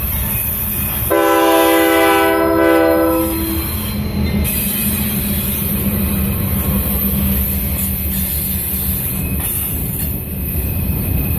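Diesel freight locomotives passing close by: a multi-note air horn sounds one blast of about two and a half seconds, starting about a second in, its notes cutting off at slightly different times. Under it and after it, the locomotives' diesel engines drone loudly and the wheels run on the rails as the units go by.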